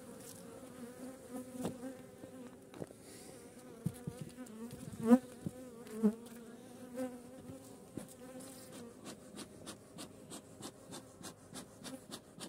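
Honeybee colony humming from an open, crowded hive: a steady buzz, with single bees flying close past, one rising in pitch about five seconds in. Faint regular ticks, about three a second, join the buzz in the last few seconds.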